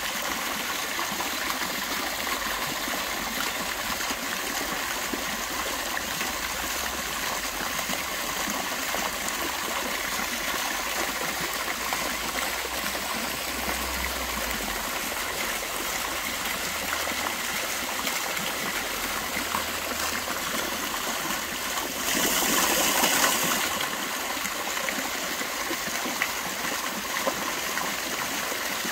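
Fountain jets splashing down into a shallow stone basin, with water spilling over the stone edge: a steady splashing and trickling that swells louder for a moment about three-quarters of the way through.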